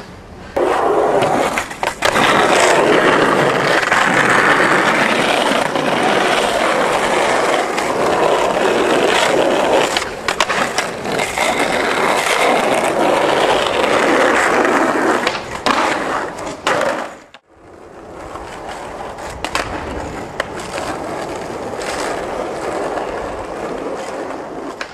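Skateboard wheels rolling over asphalt: a continuous gritty rumble with scattered clacks. It breaks off sharply about two-thirds of the way through, and a quieter, steadier rush follows.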